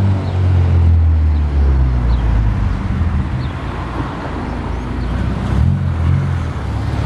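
Car running on the road: a steady low engine drone over road noise, its pitch stepping up and down a few times.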